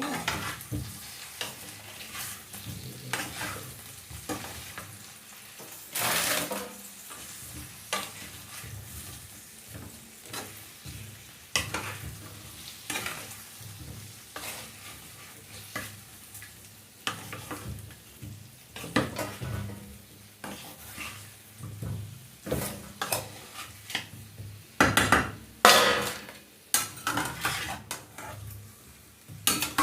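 Onions frying in a pan with a low sizzle, stirred with a utensil that scrapes and knocks against the pan over and over.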